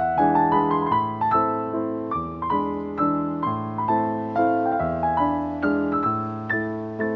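Background piano music: notes and chords struck about two or three times a second, each ringing out and fading.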